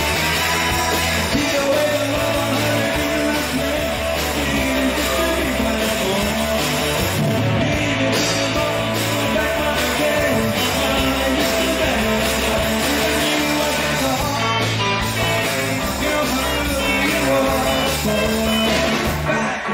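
Rock band playing live: guitar, bass and drums with singing.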